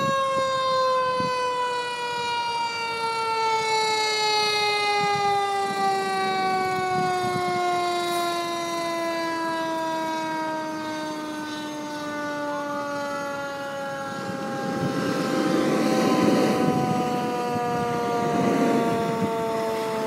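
A fire engine's siren winds down in one long, slowly falling wail. In the last few seconds the truck's engine noise grows louder as it comes close.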